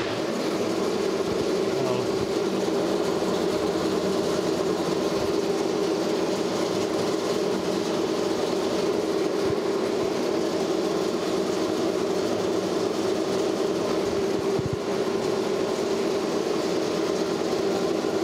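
1940 DoAll V-26 vertical band saw running with its blade turning, a steady mechanical hum with a strong low tone that starts at the very beginning and holds evenly, as the blade's tracking on the upper wheel is checked.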